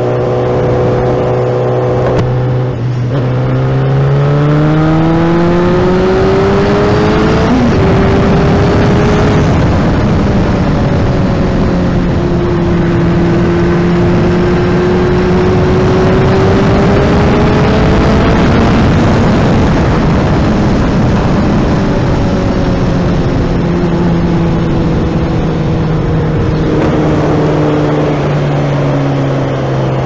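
Honda CBR600 F2's inline-four engine while riding, heard with heavy wind rush on the helmet microphone. The engine note rises as the bike speeds up from a few seconds in, holds steady at cruising speed, then drops back near the end as it slows.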